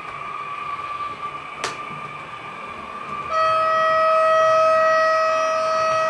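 Sound decoder of a BRAWA H0 Twindexx Vario model train playing electric running sound with a steady whine and a sharp click. About halfway in it sounds one long horn note that holds steady for about three seconds.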